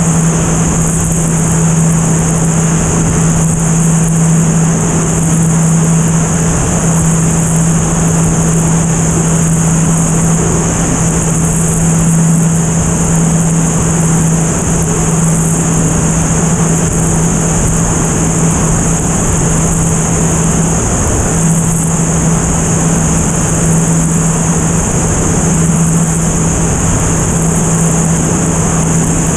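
Single-engine four-bladed propeller airplane in level flight, heard from outside the airframe: a steady engine and propeller hum under a loud, even rush of airflow over the microphone, with a brief dip in the hum about two-thirds of the way through.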